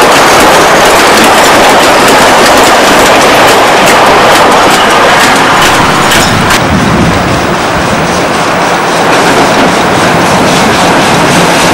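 Narrow-gauge steam train running, with loud steady rumble and rapid clicks of wheels over rail joints. About six and a half seconds in, the sound turns duller as its highest sounds drop away.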